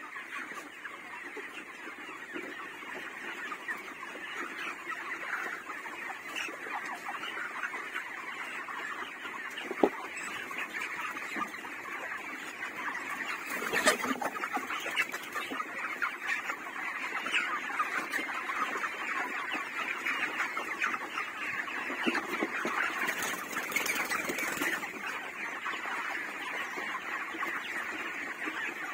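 A large flock of 32-day-old white broiler chickens calling all at once in a dense, unbroken chatter of clucks and peeps. A single sharp click stands out about ten seconds in.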